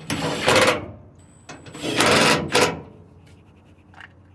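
A ratchet running the 14mm bolts of the driveshaft center carrier bearing mount: two bursts of rapid clicking, the second one longer.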